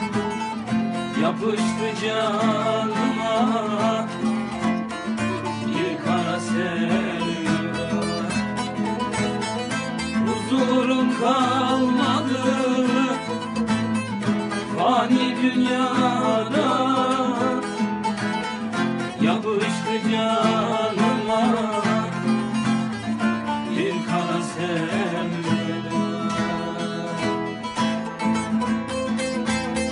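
Bağlama and acoustic guitar playing a Turkish folk song together, a continuous plucked-string duet.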